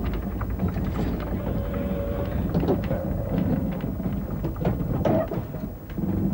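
A narrow-gauge railway carriage, an ex-Isle of Man coach, being pushed by hand along a siding: a continuous low rumble of its wheels rolling on the rails, with many small clicks and knocks.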